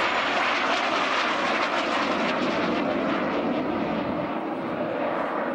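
Jet Provost jet trainer's Armstrong Siddeley Viper turbojet, a loud steady jet roar as it passes overhead, easing slightly near the end as it climbs away.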